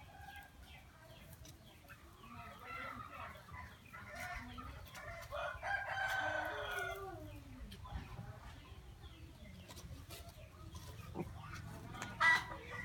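Chickens clucking in short calls, with a rooster crowing once, loudest about halfway through.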